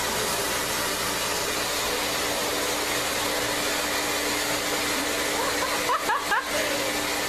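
A steady, loud rushing hiss like a hair dryer or fan, with a faint steady hum under it. A few short, rising high squeaks come about six seconds in.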